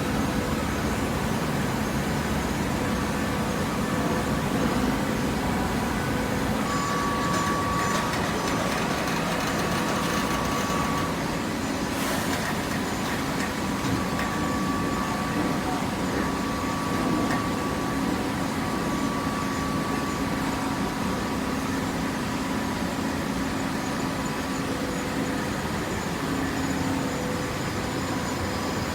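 Horizontal hydraulic waste paper baler running: a steady machine hum with faint whining tones from its hydraulic power unit, and one sharp click about twelve seconds in.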